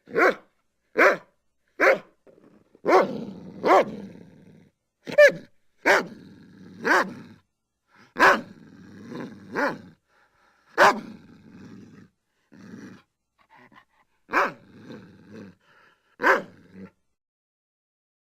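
German Shepherd dog barking in short, sharp barks at irregular intervals, with snarling and growling between them; the barks stop about a second and a half before the end.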